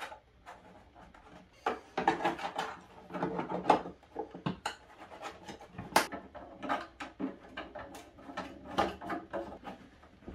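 PG29 plastic cable glands being fitted into the holes of a plastic enclosure: irregular clicks, rattles and scraping of plastic parts as the lock nuts are worked on from inside, with one sharp click about six seconds in.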